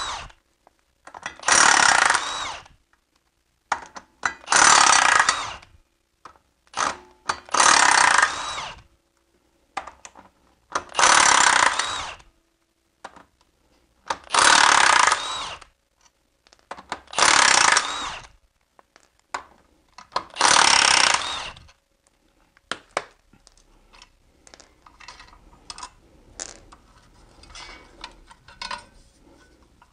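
Cordless impact wrench hammering out the flywheel bolts of a BMW M54 engine, in about eight loud bursts of a second or so each, every two to three seconds. In the last several seconds there are only light clicks of metal parts being handled.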